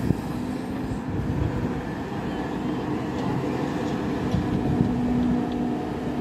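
SDLG crawler excavator's diesel engine running steadily under load while its bucket digs into soil, a continuous drone with a few held low tones.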